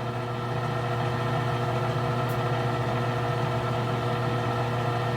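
Lathe motor running steadily at slow speed, turning a bottoming tap through a short spacer pin (power tapping). A click at the very end as the motor stops.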